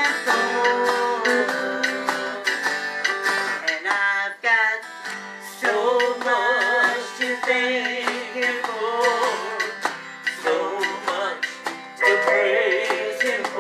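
Acoustic guitar strummed as accompaniment to a gospel song, sung by a woman into a handheld microphone with a man singing along.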